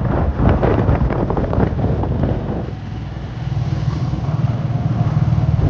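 A vehicle engine running with a steady low hum, with wind buffeting the microphone, heaviest for the first couple of seconds.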